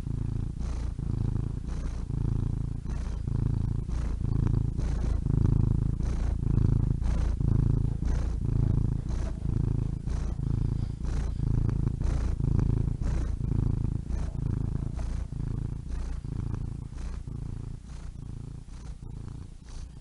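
Domestic cat purring steadily, a low rumble that swells and eases with each breath, roughly once a second.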